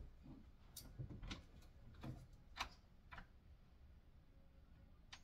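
A few faint clicks and taps as a closet door is opened, over quiet room tone.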